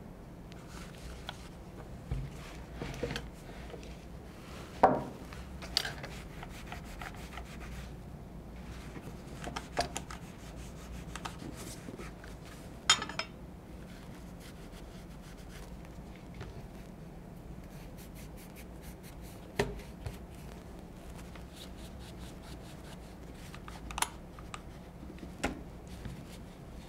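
Cloth rubbing as it wipes the inside of a pump-apart shotgun receiver with penetrating oil, with a scattered handful of sharp clicks and knocks from the gun being handled.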